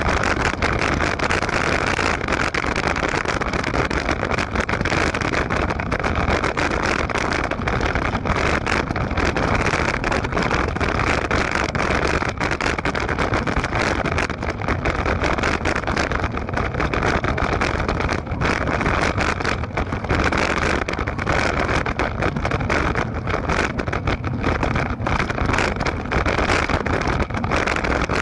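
Wind buffeting and handling noise on a moving camera's microphone: a steady, dense rumble with frequent crackles.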